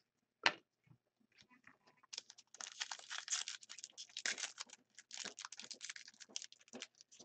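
Wrapper of a 2014-15 Upper Deck Ice hockey card pack being torn open and crinkled by hand. A single sharp click comes about half a second in, then from about two seconds a dense run of quick crackling rustles.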